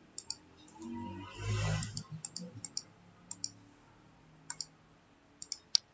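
Computer mouse clicking about a dozen times in irregular short runs, several as quick double clicks. There is a soft breathy noise about a second and a half in.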